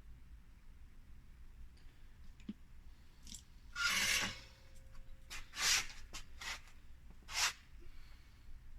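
Small clicks and three short hissing bursts from soldering work with an electric soldering iron, the first burst about half a second long and the others shorter.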